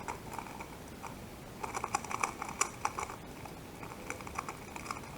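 Plastic 2x2 speedcube being turned quickly during a solve: quick runs of small plastic clicks and clacks from the layers, busiest around the middle. The cube is stiff and turns roughly.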